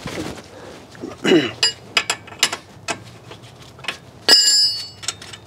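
Steel hand tools clinking and knocking on a concrete floor, with scattered small clicks and one loud ringing clank of a wrench about four seconds in.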